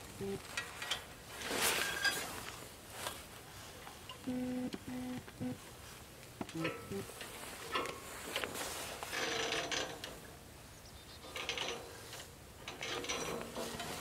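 Steel lift cable being fed by hand onto a sawmill's winch drum: irregular bursts of wire scraping over metal, with metallic clicks and rattles from the winch.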